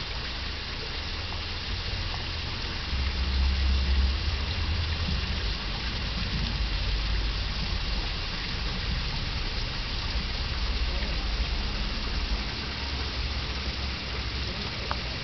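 Steady rushing of flowing water, with a low, uneven wind rumble on the microphone that swells about three to four seconds in.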